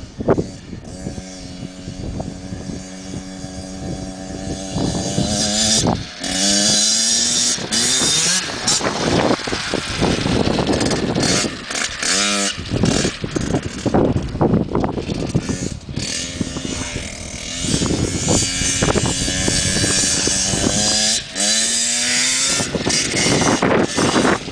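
Small children's dirt bike engine running and revving as the bike rides around, its buzzing pitch rising and falling again and again with the throttle.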